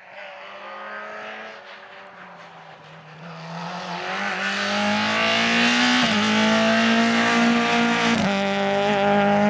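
Peugeot 206 rally car approaching at full effort. Its engine grows from faint to loud, with the note climbing under acceleration and dropping briefly twice at gear changes, and its tyres hiss on the loose dusty surface as it slides through the corner and passes close by.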